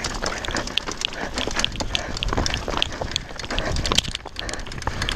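Mountain bike rolling slowly over a loose rocky trail: stones crunching and shifting under the tyres, with many sharp clicks and knocks from rocks and the bike's parts rattling.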